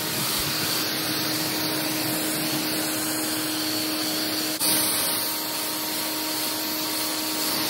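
Steady hiss of a hose spray gun rinsing a car's body with filtered pure water, with a steady low hum underneath. The hiss breaks off for an instant a little past halfway and carries straight on.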